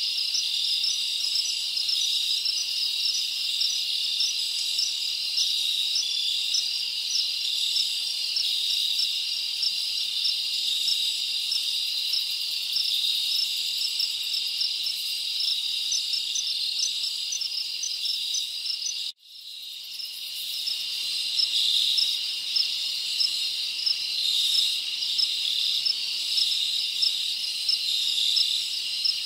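A steady, high-pitched chorus of insects, crickets by its sound, with regular chirps over a continuous trill. About two-thirds of the way through it cuts out abruptly and fades back in over a second or two, like a loop or edit point in the recording.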